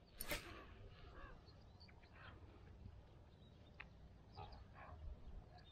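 Near silence outdoors: one brief sound about a quarter second in, then a few faint, scattered short chirps and ticks.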